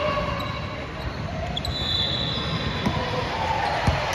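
A basketball bouncing on a hardwood gym court, with sharp thuds about three and four seconds in, over the hall's background murmur of voices.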